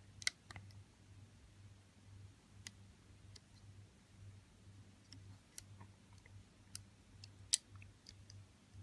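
Faint, scattered clicks and taps of a plastic hook working silicone loom bands up over the pins of a plastic rubber-band loom, with one louder click near the end.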